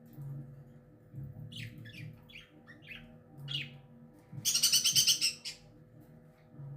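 Indian ringneck parakeet calling: a string of short chirps, then about half-way through a loud, rasping screech lasting about a second.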